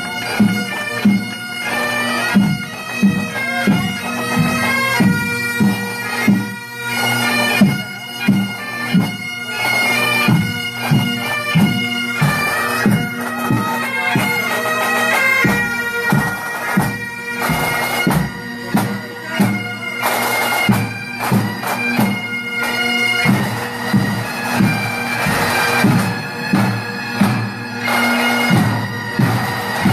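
Pipe band marching in: bagpipes play a march tune over their steady drone, with drums beating about twice a second.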